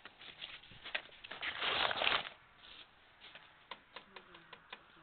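Paper rustling as a bulletin and manuals are handled, with a short burst of rustling about a second and a half in. A few light clicks and taps follow.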